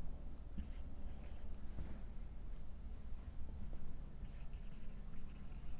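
Faint scratching of a marker writing on a whiteboard, over a steady low hum and a faint high-pitched chirping that pulses about twice a second throughout.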